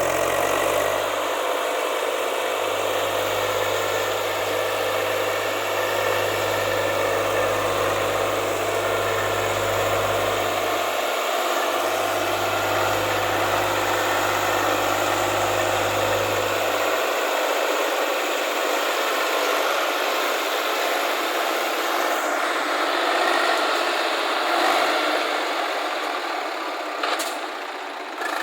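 Heavy diesel engines of earth-moving and farm machinery running steadily. Their low rumble drops away about two-thirds of the way through.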